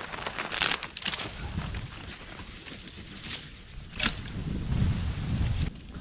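Dry sticks and brushy branches being laid and dropped onto a small, newly lit campfire: twigs rustling, crunching and snapping in several short bursts, the loudest in the first second and about four seconds in.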